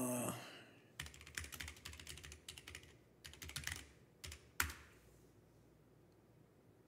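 Computer keyboard typing: a quick run of keystrokes for about four seconds, ending with one louder key press.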